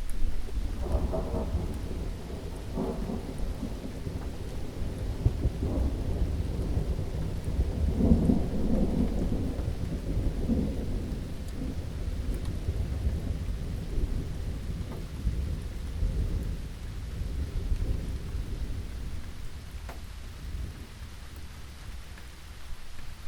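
Steady rain with a long roll of thunder rumbling underneath. The thunder builds about a second in, is loudest around eight seconds in, and dies away over the second half.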